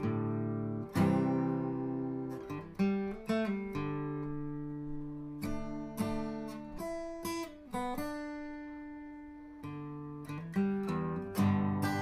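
Acoustic guitar music: plucked notes and strummed chords, each struck sharply and left to ring out.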